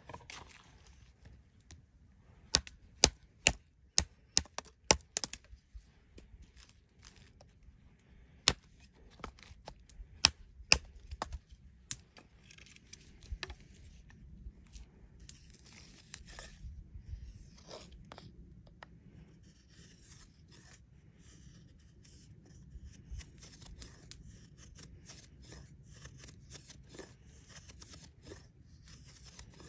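A tracker knife carving feather curls on a dry stick. First comes a run of sharp clicks and knocks, then from about twelve seconds in a quick series of short scraping strokes of steel shaving dry wood.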